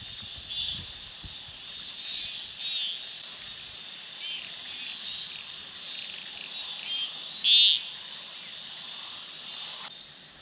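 Frogs calling in a night chorus: short pulsed calls repeating over a steady high trill, with one louder call about seven and a half seconds in.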